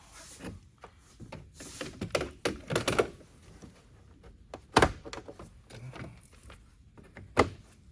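Clattering and knocking of parts and tools being handled, with two sharp knocks, one near five seconds in and one near the end.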